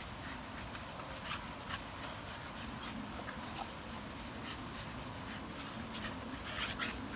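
Two Staffordshire bull terriers playing at a tennis ball on a chain: faint dog grunts and growls, with a few sharp clicks and rattles from the ball and chain, two early and a cluster near the end, over a steady background hiss.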